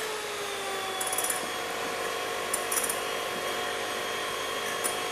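Electric hand mixer running steadily, its beaters whipping a creamy tiramisu mixture in a bowl, with a few light clicks.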